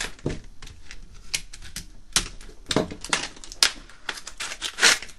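Clear plastic blister packaging crackling and clicking as a hand tool is pulled out of it by hand: an irregular run of sharp clicks and crinkles.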